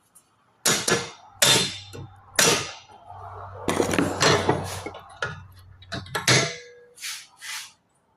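Rubber mallet striking a metal part to tap it down. There are three hard blows in the first few seconds, then a quick run of many blows, then two lighter taps near the end.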